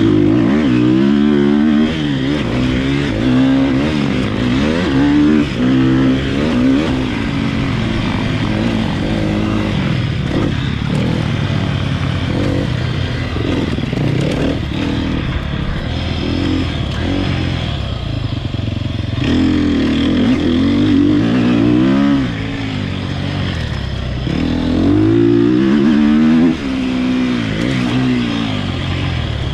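Sherco off-road motorcycle engine heard from onboard while riding, its pitch climbing and dropping again and again as the throttle is opened and closed.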